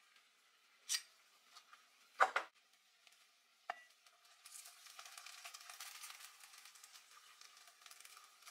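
Three sharp clicks as clams in their shells are dropped into an enamelled cast-iron pan, then a steady sizzle from about four and a half seconds in, as wet spaghetti goes into the hot sauce.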